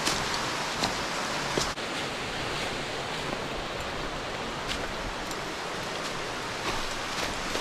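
Rushing water of a mountain stream, a steady hiss, with a few faint clicks and a brief dip in level a little under two seconds in.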